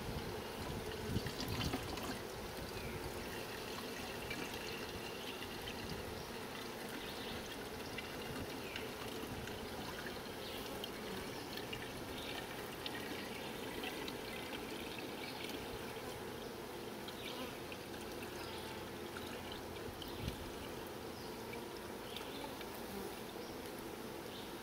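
Honeybees buzzing steadily around an open nuc hive, with a few light knocks about a second in.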